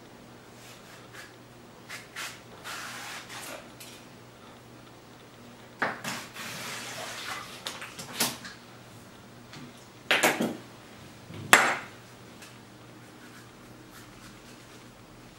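Metal kitchen tools and knives clinking and knocking against a table and a wooden cutting board, with short stretches of scraping between. The loudest knocks come about ten and eleven and a half seconds in.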